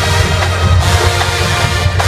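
Marching band playing loudly, winds and drums together.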